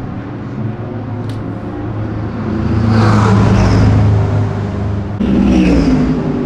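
Race car engines running past, two loud passes, each with its pitch falling as the car goes by; the second cuts in suddenly about five seconds in.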